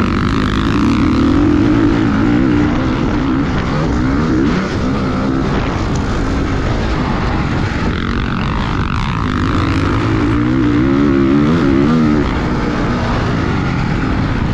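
Motocross dirt bike engine running hard, its pitch rising and falling over and over as the throttle is opened and shut.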